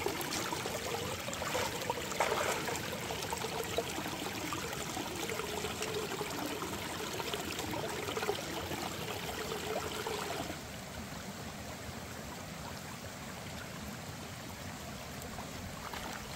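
Shallow stream running over rocks, with splashing footsteps as someone wades through it. About ten seconds in the water sound turns softer and steadier.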